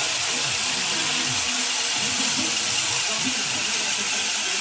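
Homemade bandsaw mill running with a steady, loud hiss, with a faint voice underneath.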